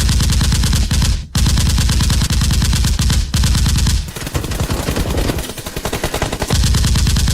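Rapid automatic machine-gun fire in long bursts, with short breaks about a second and about three seconds in and a lighter passage in the middle. This is a gunfire sound effect laid over a Nerf blaster fight.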